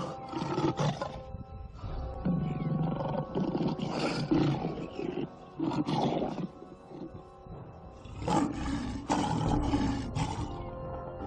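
Harsh wild-animal roars and growls in repeated bursts about a second long, over background music with sustained tones.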